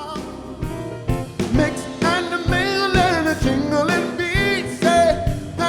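Music with a singer's voice over instrumental backing, the voice wavering in pitch on held notes.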